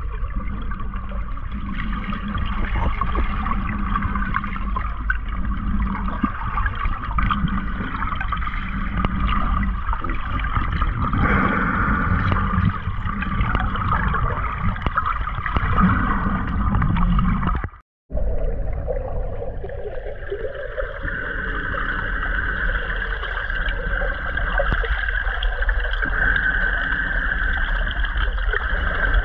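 Muffled underwater noise from a camera held below the surface: a steady wash of water with a constant mechanical hum running through it. The sound cuts out for an instant about eighteen seconds in.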